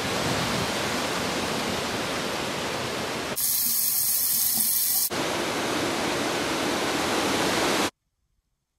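Steady rushing noise of water, with a louder, hissier stretch from about three and a half to five seconds in, where tap water pours onto a small action camera in a sink. The sound cuts off abruptly near the end.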